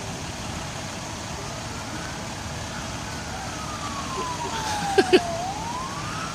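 An emergency vehicle's siren wailing: a slow rise, a long fall, then rising again near the end, over steady background noise. Two short, sharp blips in quick succession, the loudest sounds, come about five seconds in.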